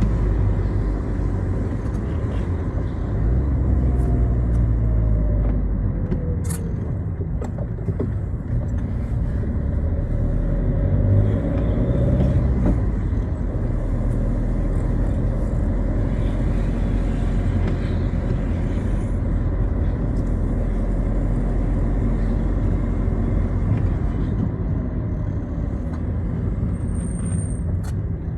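Citroën Xsara driving: a steady low engine and road rumble, with tyre noise on a wet road.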